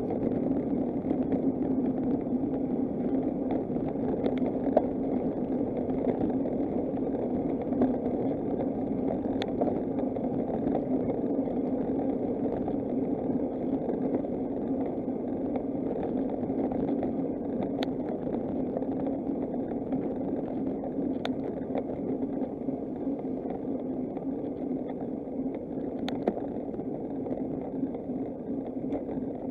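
Steady rushing noise of riding a bicycle: wind and tyre noise on the road, with a few short ticks now and then.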